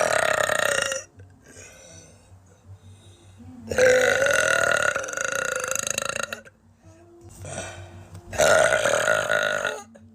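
A woman burping loudly three times: a short burp at the start, a long drawn-out one of about two and a half seconds in the middle, and a third of about a second and a half near the end.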